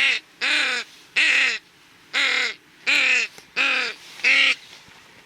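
A hunter's duck call blown in a string of seven loud, raspy quacks. Each quack rises and then falls in pitch.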